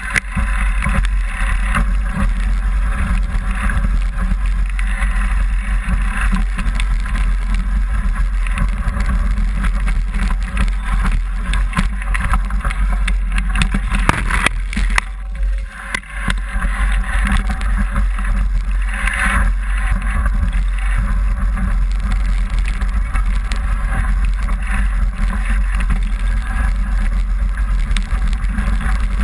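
Mountain bike riding down a rough forest trail, heard through a camera mounted on the bike: steady wind rumble on the microphone with constant rattling and knocking from the bike over roots and stones, easing briefly about halfway through.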